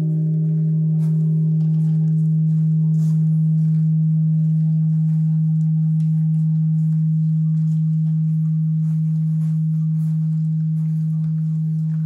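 Large bronze Japanese temple bell (bonshō) ringing on after a strike: one deep hum that fades only slowly, while its higher overtones die away in the first few seconds.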